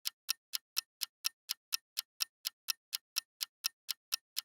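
Clock-ticking sound effect marking a time skip: sharp, evenly spaced ticks, about four a second.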